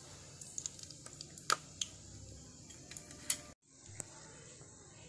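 Small wheat biscuits deep-frying in oil in a tiny pot: a steady sizzle with scattered sharp pops and clicks. The sound cuts out briefly about three and a half seconds in, then the sizzle goes on more quietly with one more click as a small metal spoon stirs the biscuits.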